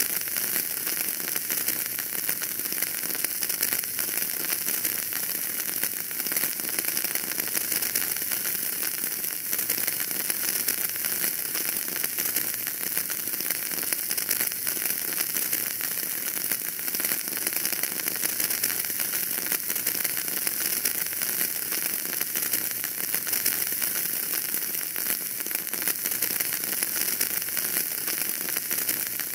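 Wood fire in a fireplace crackling steadily: a dense run of small pops and snaps over a high, even hiss.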